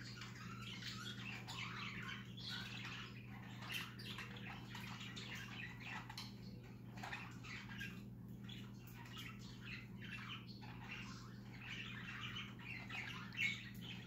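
Several budgerigars chirping together in a dense, continuous run of short overlapping notes, with one louder chirp near the end.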